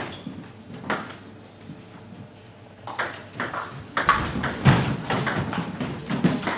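Celluloid table tennis ball clicking off rubber bats and the table in a doubles rally. The hits are spaced out at first, then come quick and loud from about three seconds in, with low thuds underneath.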